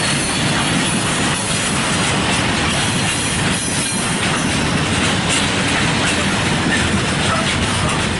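Log-laden freight wagons rolling past close by: a steady, loud rumble and clatter of steel wheels on the rails.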